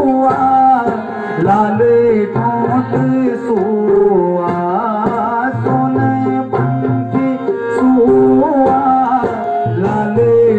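Tabla and harmonium playing a Garhwali mangal geet, a wedding folk song, with a singing voice carrying a wavering melody over the drum rhythm.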